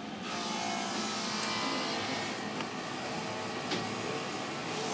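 Steady whoosh of a soldering fume extractor fan running, with a few faint clicks.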